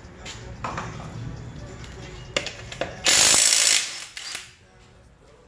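Impact wrench hammering on a wheel's lug nuts: a loud burst lasting under a second about three seconds in, then a shorter burst. A few metal clicks of the socket going onto the nuts come before.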